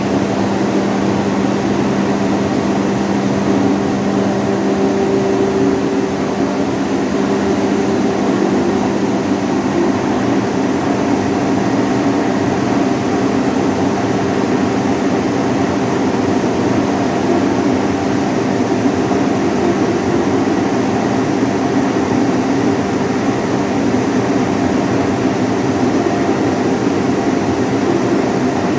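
55 kW hammer mill plant with its blowers running steadily: a loud, even machine drone with a constant hum and no change in pace.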